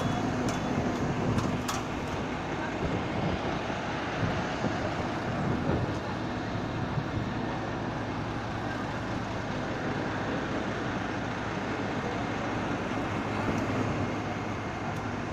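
Heavy diesel engine running steadily at idle, a constant low hum under general machinery noise, with a few sharp clicks in the first two seconds.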